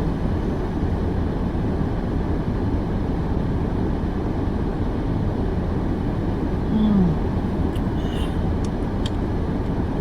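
Steady low rumble of a car idling, heard from inside the cabin. A brief falling hum comes about two-thirds of the way through, and a few faint clicks follow near the end.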